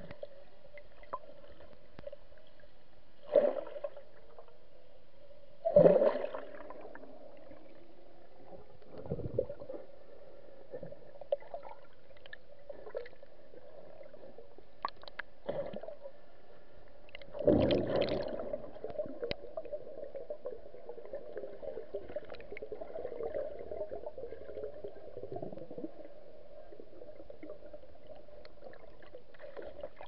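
Muffled underwater sound picked up by a camera held beneath the surface: a steady low hum with gurgling water and scattered knocks. Several dull thumps stand out, the loudest about three and a half, six and seventeen seconds in.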